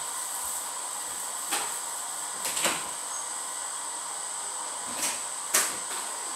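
Steady hiss of water heating toward the boil, broken by four brief knocks or rustles.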